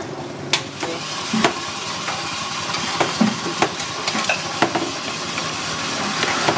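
Metal ladles and spoons clinking and scraping against bowls and pots as dessert toppings are scooped into a bowl, a scatter of short clicks over a steady background hiss.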